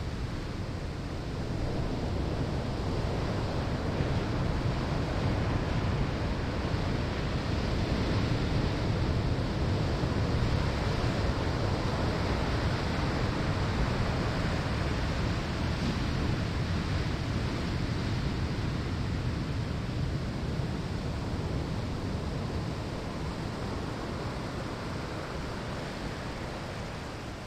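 Surf breaking on a sandy shore: a continuous rushing wash of waves that swells gently through the middle and eases off near the end.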